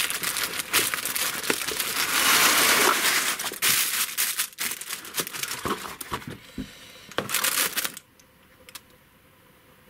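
Loose cellophane being crinkled and moved about by hand, a dense crackling with many sharp crackles that comes in bursts and stops about two seconds before the end.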